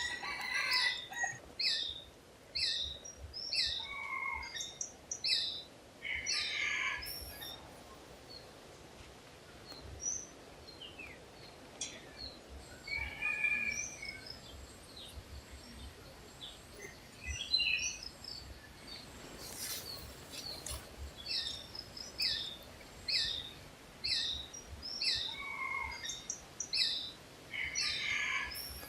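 Forest songbirds singing. One bird repeats a phrase of short, falling, whistled notes about twice a second in a bout at the start and again about three-quarters of the way through, while other birds give scattered calls over a faint background hiss.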